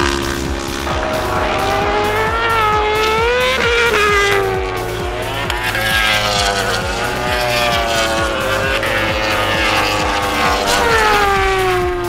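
Racing superbike engines at high revs as bikes pass at speed. The pitch climbs and drops again and again with gear changes and throttle, and falls away in a long glide as a bike goes past near the end.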